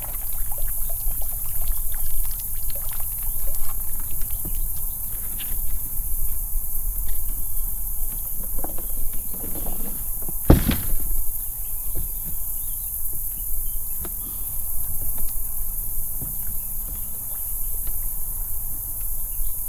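Scattered knocks and footfalls on a bass boat's deck as a person moves at the bow and climbs off onto a muddy bank, with one sharp thump about halfway through. A steady high buzz of insects runs underneath.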